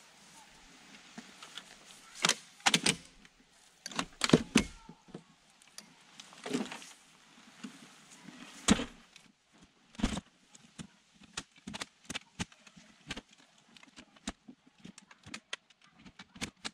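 Handling noises as a Thule Tepui Foothill rooftop tent is unfolded and its telescopic aluminium ladder is set up: scattered knocks and fabric rustles, then a quick run of sharp metallic clicks from about ten seconds in.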